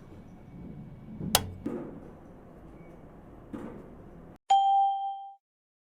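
A sharp knock, then two softer knocks, then a single bright ding that rings for about a second and cuts off.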